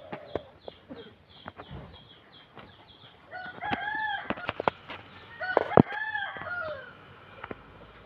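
A rooster crows twice, each crow one long call that rises and then falls. A sharp knock lands during the second crow. A small bird chirps rapidly in the first second or so.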